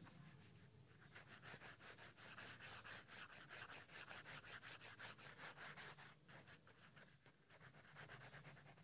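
Faint pencil scratching on paper in quick back-and-forth shading strokes, several a second, with a short break about six seconds in before the strokes resume.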